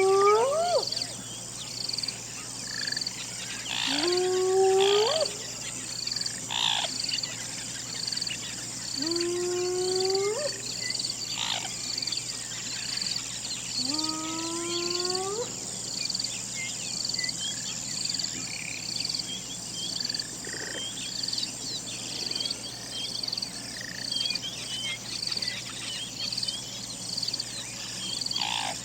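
Hyena calling in four long rising whoops, spaced a few seconds apart in the first half. A steady pulsing chorus of night insects and a few small chirps carry on underneath and fill the second half alone.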